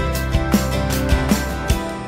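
Background music with a steady beat; the low bass drops out near the end.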